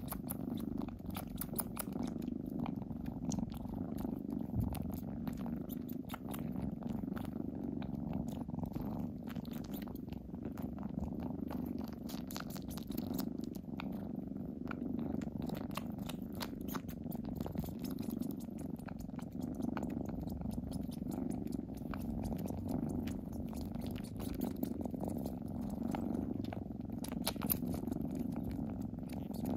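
Kittens purring steadily, close up, with a scatter of small clicks over the purr.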